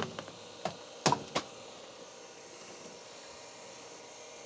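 A running IBM PC XT, its power supply fan and drives giving a steady low hum and hiss. A few sharp clicks come in the first second and a half.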